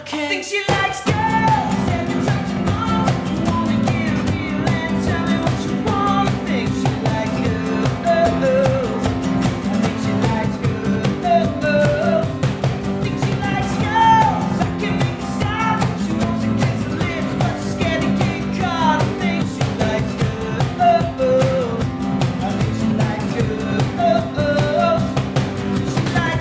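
Acoustic performance of a pop-rock song: a male voice singing the lead over a strummed acoustic guitar. The music breaks off for a moment right at the start, then runs steadily.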